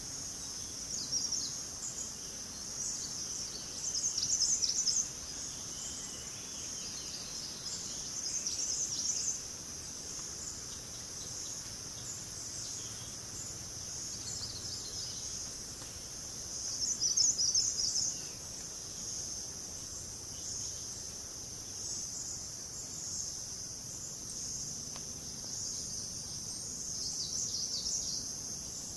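Hill-forest ambience: a steady high insect chorus. Every few seconds it is topped by short bursts of rapid, high chirping, loudest about four and seventeen seconds in.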